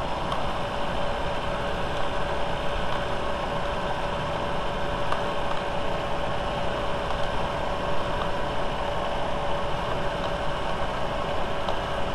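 VW 1.8T turbocharged four-cylinder engine idling steadily while warming up, heard close from the open engine bay, with a steady whine running through it.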